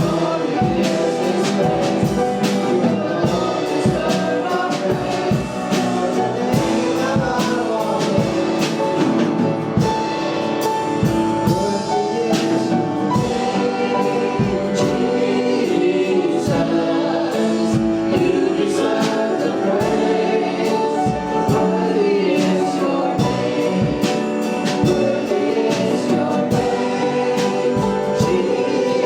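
Worship song in a church service: voices singing over a band with a steady drum beat.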